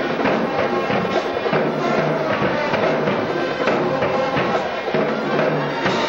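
Music with drums and percussion keeping a steady beat under sustained pitched tones.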